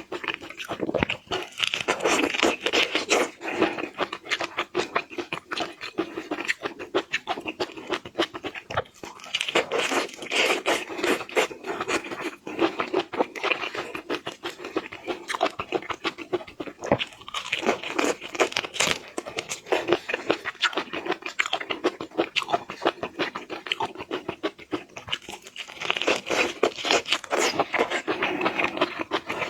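Close-up eating sounds: a person chewing and crunching seafood, with a dense stream of wet clicks and crackles that grows louder in spells about every eight seconds.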